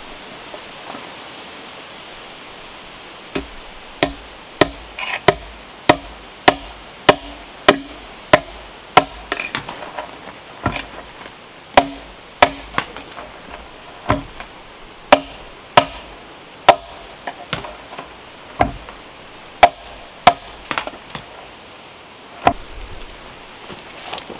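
Hammer blows on wood: a long series of sharp strikes with a short ring after each. They start about three seconds in at about one and a half strikes a second, then come more slowly with short pauses, and stop a couple of seconds before the end.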